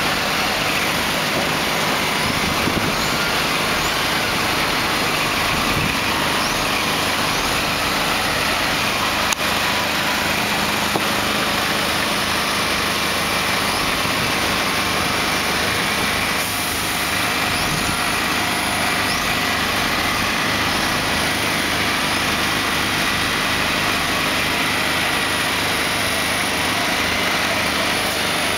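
Heavy-haulage truck's diesel engine running steadily as it creeps forward pulling a long load on a trailer, with one short click about nine seconds in.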